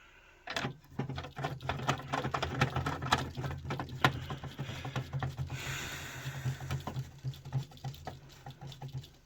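Rapid, irregular clicking and scratching of a screw being driven in by hand to fasten a plastic System Sensor L-series horn/strobe onto its mounting plate. It starts about half a second in and stops just before the end.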